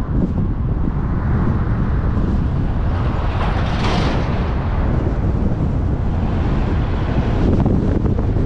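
Wind rumbling on the microphone of a moving vehicle, with steady road and traffic noise, and a brief louder hiss about four seconds in.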